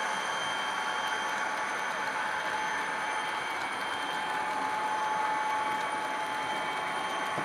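Model EMD SD40-2 diesel locomotives running on track, their ESU LokSound decoders playing diesel prime-mover sound through small onboard speakers, steady throughout.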